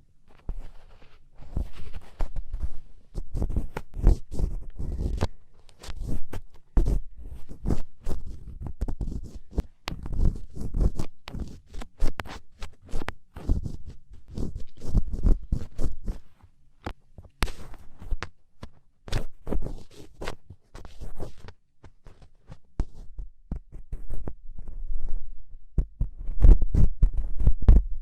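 Black ear pick scraping and scratching inside an ear for ASMR: irregular close-up scratches and muffled rumbling knocks, with short pauses between strokes.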